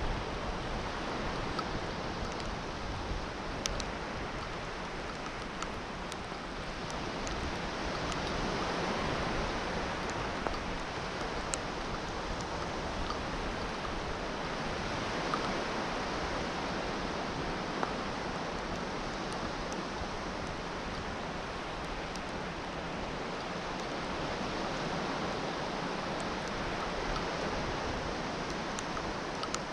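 Steady wash of North Sea surf on a sandy beach, swelling slightly about eight seconds in, with a few faint ticks.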